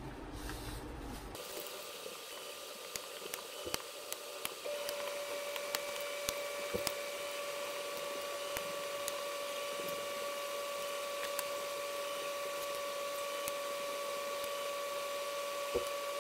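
Paper towel rubbing and wiping resin off a metal resin-vat frame, with light clicks and taps of the metal parts against the bench. A steady hum with a few overtones starts about five seconds in and holds.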